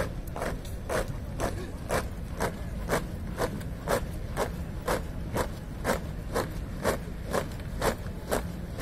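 Marching soldiers' boots striking the parade ground in unison, a steady, even beat of about two steps a second.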